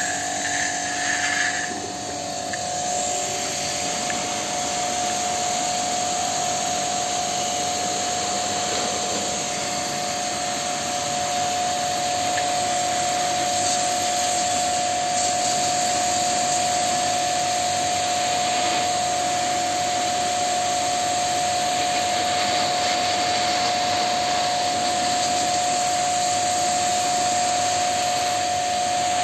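Pressure washer running, its water jet hissing against the finned condenser coil of a split AC outdoor unit as the coil is cleaned, with a steady whine under the spray.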